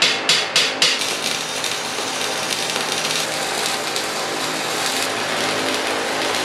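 Arc welding on a steel frame: a quick run of sharp taps, about four a second, in the first second, then a steady crackling, sizzling arc as a continuous weld is laid.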